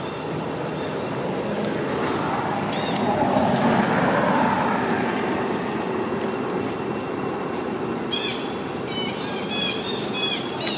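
Steady outdoor background din, a broad rumble that swells a few seconds in. Short, high chirps come near the start and again in the last few seconds.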